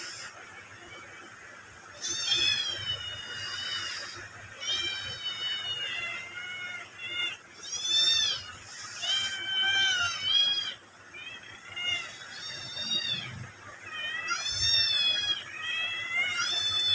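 A cat meowing over and over: about a dozen loud, drawn-out calls that rise and fall in pitch, one every second or so, starting about two seconds in.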